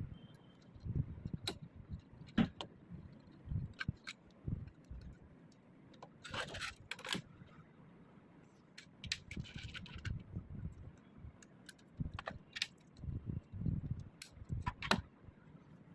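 Plastic Lego Technic parts of a mechanical door clicking, rattling and scraping at irregular intervals, with a longer rattle about six to seven seconds in and soft low thumps in between.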